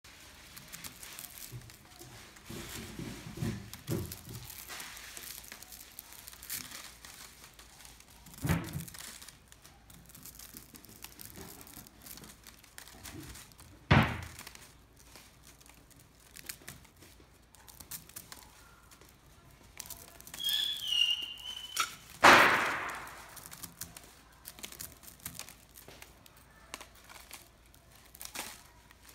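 A bamboo-handled tea pick prying flakes off a compressed pu-erh tea cake on its paper wrapper: scattered small clicks and scraping, paper crinkling, and a few louder sudden knocks and cracks as pieces break away.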